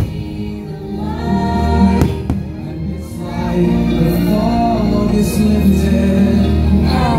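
Fireworks show soundtrack of orchestral music with a choir singing, heard over the park's loudspeakers. Two sharp firework bangs come about two seconds in.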